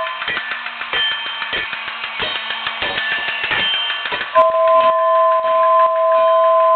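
Battery-operated Toy State 2-6-0 Mogul toy locomotive sounding its two-note air whistle, which stops at the start and blows again, steady and loud, about four and a half seconds in. In between, the locomotive's bell rings over a rapid clicking from its chuffer.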